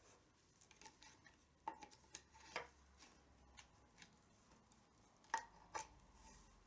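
A tabla being worked on as its badhi strap is tightened: a handful of sharp, faint knocks and clicks, with the drumhead briefly ringing after the louder ones. The loudest knock comes a little past five seconds in.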